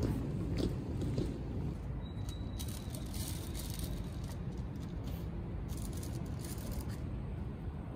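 City street ambience: a steady low rumble of distant traffic, with a few faint clicks in the first second and brief hissing around the middle.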